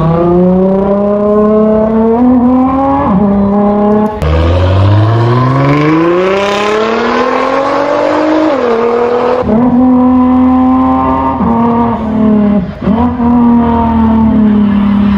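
A man imitating a car engine with his mouth into a microphone, the pitch climbing and dropping in steps like revving through gear shifts. About four seconds in it cuts abruptly to a real Nissan GT-R accelerating away, its engine note rising steadily through a gear and dropping at an upshift, then about five seconds later cuts back to the mouth imitation holding a steady note with quick dips.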